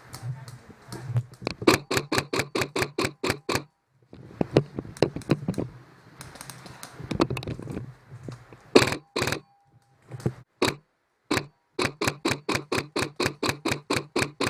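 Airsoft guns firing in rapid strings of sharp shots, about six a second, with a few louder single cracks near the middle.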